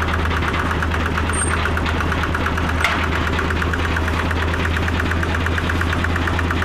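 A boring machine's engine running steadily at a constant speed, with a fast, even clatter over a deep hum. There is one sharp click about three seconds in.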